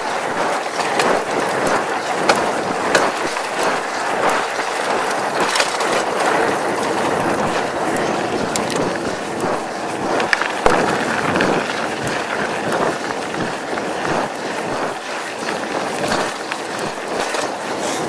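Mongoose Tyax mountain bike rolling over a sandy dirt forest track: steady tyre noise with the bike rattling and many sharp clicks and knocks over the bumps.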